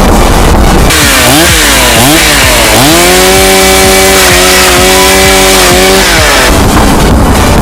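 Two-stroke chainsaw engine blipped twice, then held at high revs for about three seconds before dropping back. Loud, rough noise surrounds the revving before and after.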